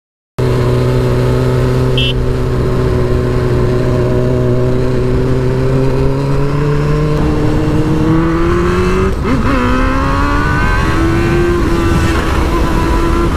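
Honda Hornet motorcycle engine running under way with wind rush on the helmet microphone. The engine note climbs slowly, drops briefly about nine seconds in as a gear is changed, then climbs again under acceleration.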